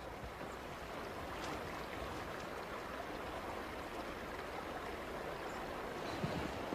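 Running water of a stream, a steady rushing, with a few soft thumps near the end.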